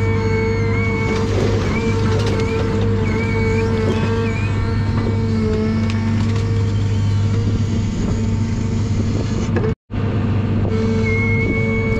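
John Deere 1010G forwarder's diesel engine running steadily while its hydraulic crane swings a grapple of spruce logs onto the load, with a whine that shifts in pitch as the crane moves. The sound drops out for a moment about ten seconds in.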